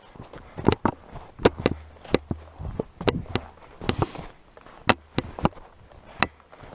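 Footsteps crunching on frozen, frost-covered bog ground and thin snow: sharp, crisp crunches about two a second at an uneven walking pace.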